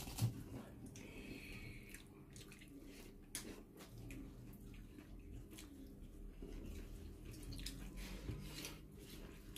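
Eating by hand: wet squishing as rice and prawn curry are mixed with the fingers, and chewing and lip sounds as the food is eaten, with a few small sharp clicks. A faint steady hum runs underneath.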